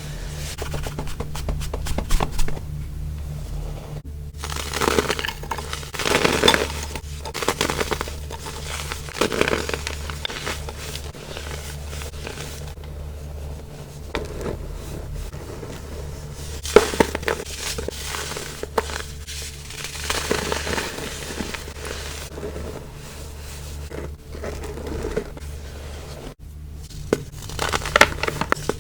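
Crumbly baking soda being crushed, giving irregular crunches and crackles in uneven clusters over a steady low hum.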